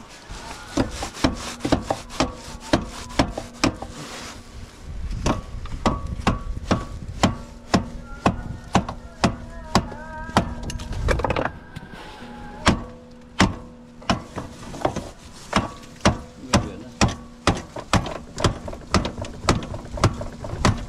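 Repeated hard knocks, about two a second with a short break near the middle, as the broken driveshaft of a Can-Am Outlander 800 ATV is beaten to work it loose.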